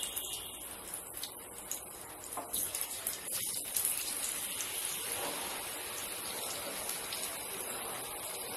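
Besan-battered bread slices deep-frying in hot oil: a steady sizzle with irregular crackling. The sizzle grows denser and more even about halfway through.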